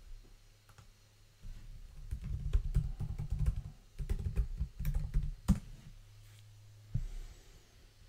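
Typing on a computer keyboard: a quick run of keystrokes ending with one harder key press about five and a half seconds in, then a single click about a second later.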